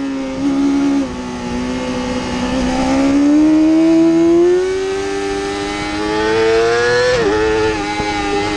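Yamaha YZF-R6's inline-four engine running high in the rev range. Its pitch climbs steadily for several seconds under acceleration, then an upshift drops it sharply about seven seconds in, and it holds steady after that.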